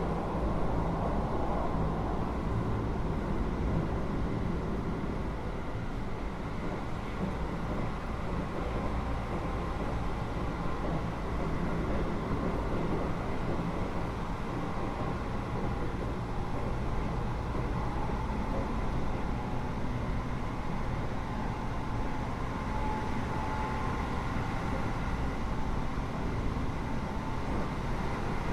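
Running noise heard inside a Keio 8000 series electric train car: a steady rumble of wheels and running gear, with faint steady tones above it.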